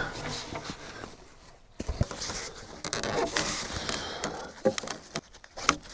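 Handling noise of a log being tied to a tree trunk with cord: rustling and scraping, with scattered clicks and a dull knock about two seconds in.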